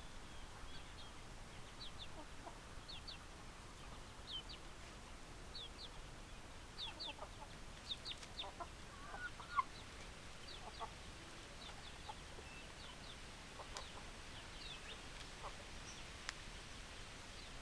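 Chickens clucking and calling, fairly faint, with many short high chirps repeated throughout. A cluster of lower calls comes around the middle, including the loudest call.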